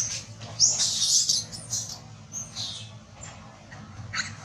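Macaque giving a run of shrill squeals, loudest about a second in, with a last short squeal near the end.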